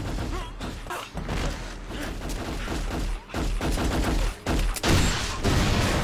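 Gunfire from a TV drama's fight scene: grunting from a struggle over a pistol, then a series of sharp shots, loudest in the last second and a half.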